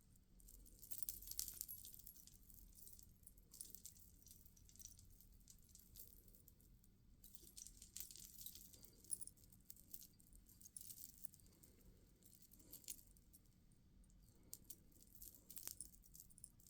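Faint clicking and rattling of small beads knocking against one another on beaded tassels as they are handled, in several short irregular bursts.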